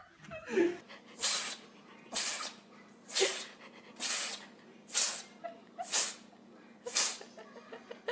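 Cat sneezing over and over: seven short, sharp sneezes about a second apart.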